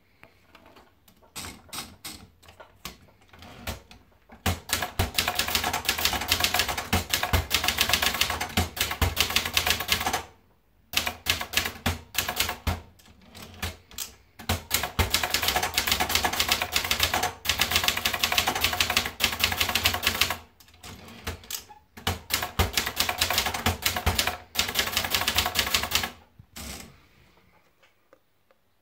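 Brother Deluxe 850TR typewriter being typed on: rapid key strikes in runs of several seconds, broken by short pauses.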